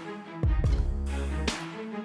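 Background music between narration: a deep bass hit that drops in pitch lands about half a second in under steady chord tones, and a bright hissing swell builds near the end.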